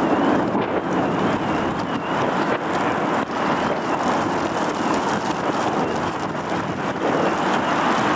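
Car alarm siren warbling, its pitch rising and falling over and over, set off by the roar of a British Airways Boeing 777 going around. It sits under loud storm-wind noise buffeting the microphone.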